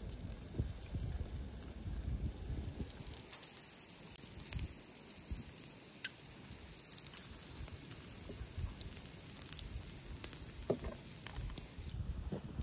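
Skewered offal and fat sizzling over glowing charcoal embers, with scattered sharp pops and crackles.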